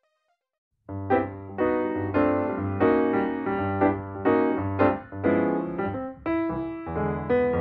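Keyboard music, piano-like, playing repeated chords over a low bass line. It starts about a second in, after a moment of silence.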